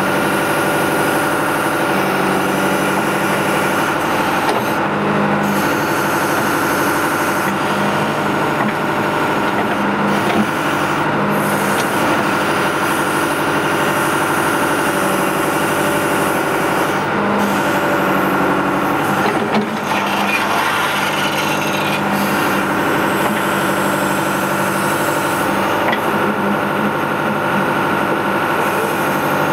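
John Deere 310D backhoe's diesel engine running steadily at working speed, its note dipping and coming back every few seconds as the hydraulics take load while the backhoe digs in loose dirt.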